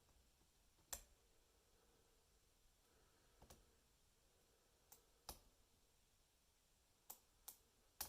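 Faint, sharp metallic clicks from a lock pick working the spool pins of a brass Lockwood 334B45 pin-tumbler lock, about seven of them at uneven intervals.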